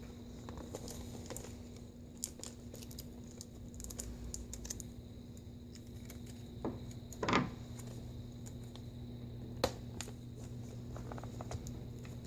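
Small clicks and taps of hands handling laptop parts while reconnecting an LCD panel's connector, with a louder scraping knock about seven seconds in and a steady low hum underneath.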